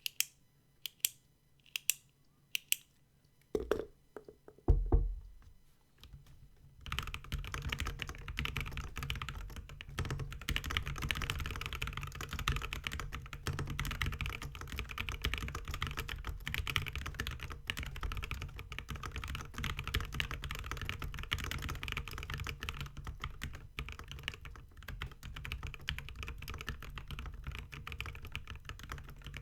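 A few separate sharp clicks and low knocks, then, about seven seconds in, fast steady typing on a mechanical keyboard: a polycarbonate-cased Maja with lubed Alpaca v2 linear switches and MT3 keycaps, keys clacking in a dense run.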